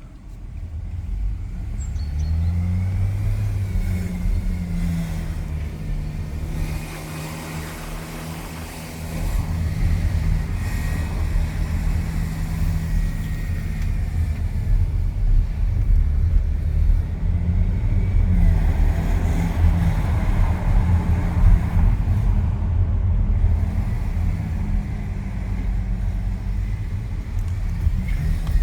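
Audi A6 3.0 TDI V6 diesel engine revved up and down several times, with a whine that rises and falls with engine speed, like a supercharger rather than a turbocharger. The owner has not found the cause, and had ruled out the belt idlers by taking the drive belt off.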